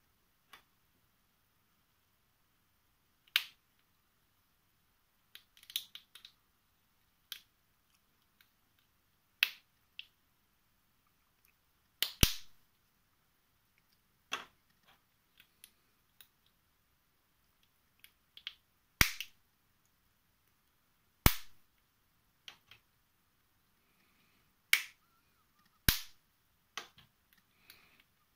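Sharp clicks of small plastic puzzle pieces being handled and fitted together on a wooden worktop: about a dozen separate clicks at irregular intervals a second or more apart, some much louder than others.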